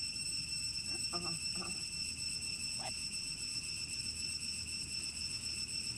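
A steady, high-pitched insect drone, a constant whine with no breaks. A few faint short calls sound over it about a second in and again near three seconds.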